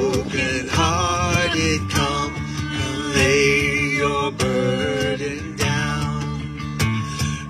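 A small band playing a song on strummed guitars, with singing.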